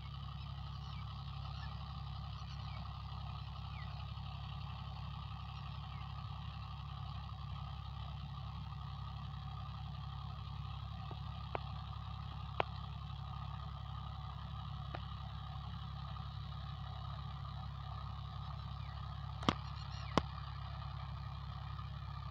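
Mahindra tractor's diesel engine running steadily as it pulls a rotavator through the soil, with a few sharp clicks, the two loudest near the end.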